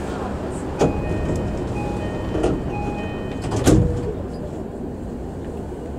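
Door-closing chime of a JR East E233-series commuter train, repeated short high tones, followed by the sliding doors shutting with a heavy thump a little before four seconds in, over the steady hum of the stopped train. A sharp knock comes about a second in.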